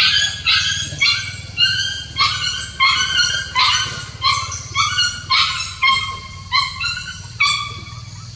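Puppies yelping and whimpering: a rapid series of high-pitched cries, about two a second, that stops near the end.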